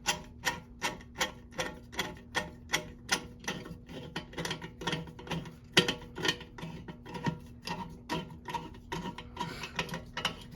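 Regular clicking, about three to four clicks a second, as the new toilet flush valve is tightened down.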